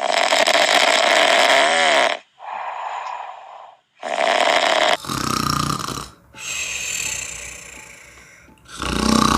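Snoring: about six loud snores one after another, some short and some long and drawn out, with brief gaps between them.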